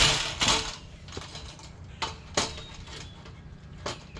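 Galvanized steel raised-bed panels clanking and rattling as the partly built bed is handled and turned around: two loud clanks at the start, then a few lighter metal knocks and clicks.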